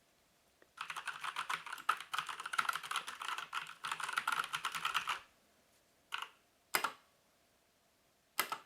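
Typing on a full-size mechanical keyboard with Kailh brown switches: a fast run of key clicks for about four seconds, then a few single key presses spaced apart.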